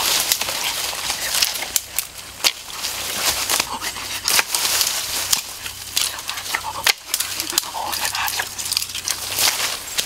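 Dry grass, leaves and brush rustling, with many sharp twig snaps and cracks, as a person moves and crouches through undergrowth.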